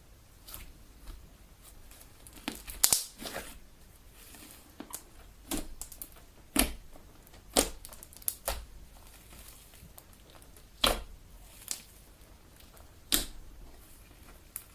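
Homemade Elmer's glue slime being kneaded and pressed by hand, giving a string of irregular sharp pops and crackles as air pockets burst, spaced a second or so apart.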